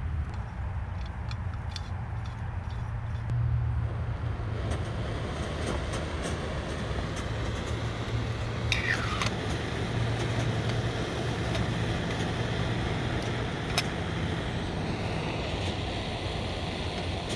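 Backpacking stove on a screw-on gas canister burning steadily with a rushing hiss under a pot, with a few light clicks as it is handled and a short falling whistle about nine seconds in.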